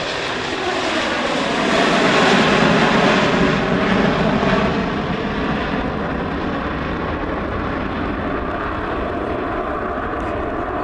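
Boeing 727's three JT8D turbofan engines at high power as the jet passes and climbs away. Loudest from about two to five seconds in, then a steady rumble.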